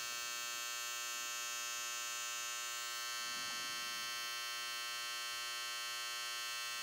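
BaByliss Boost+ cordless hair trimmer running steadily at full speed, a continuous high buzzing hum from its motor and blade, measured at about 82 decibels.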